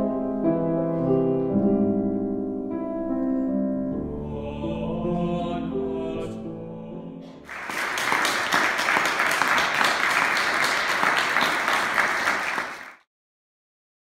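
A chamber ensemble of voices and instruments holds its closing chords, fading away over several seconds. About seven and a half seconds in, the audience breaks into applause, which cuts off abruptly near the end.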